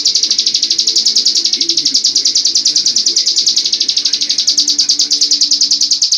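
Ciblek gunung, a prinia, singing its 'ngebren' song: a loud, unbroken, fast rattling trill of high notes, about ten a second.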